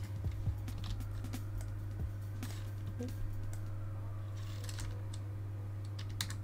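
Scattered clicks and taps of a computer keyboard being used for shortcuts, over a steady low hum.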